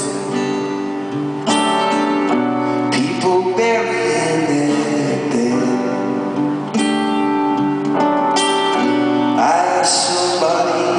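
Live band music led by strummed acoustic guitar chords, with a voice singing over them; the chords change several times, each change a fresh strum.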